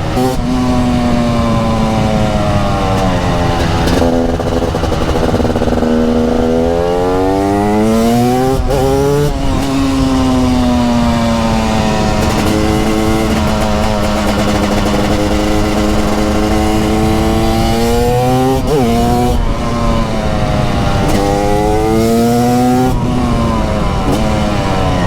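TM Racing SMR 300 supermoto's 300cc two-stroke single-cylinder engine under way, its revs rising and falling with the throttle and gear changes. It climbs hard about eight seconds in and again from about nineteen seconds, with quick breaks in pitch at the shifts and a long easing-off in between.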